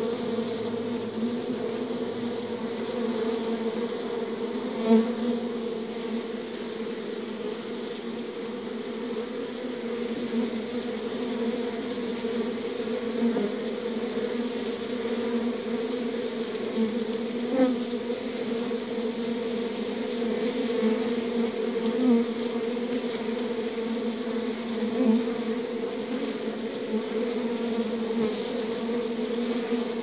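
A wild honeybee colony, disturbed as its comb is handled, buzzing in a steady dense hum with a higher hum above it. Single bees pass close and are briefly louder about five seconds in, and several more times later.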